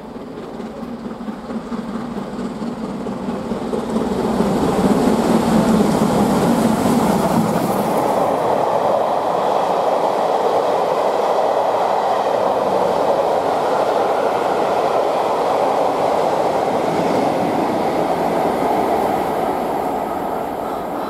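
LMS Black Five steam locomotive 44871 comes through at speed with its train of coaches. The noise builds over the first few seconds as the engine approaches and passes, stays loud and steady while the coaches roll by, and starts to fade near the end.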